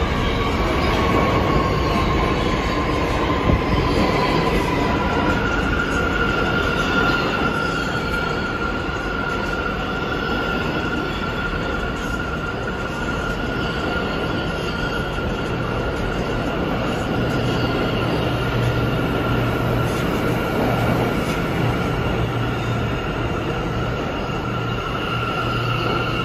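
New York City subway train running on the rails with its wheels squealing over a continuous rumble. A high squeal slides down a little over the first few seconds, then a slightly higher squeal holds steady.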